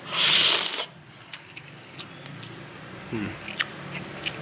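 A loud breathy rush of noise lasting under a second. It is followed by a few faint clicks and a brief low hum, and near the end metal chopsticks click lightly into a bowl of noodle soup.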